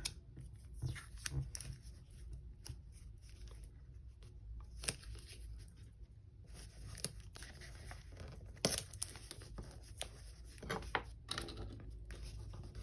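Scattered rustling, tapping and tearing of paper and tape as paper ephemera is handled and stuck onto a planner page, over a low steady hum.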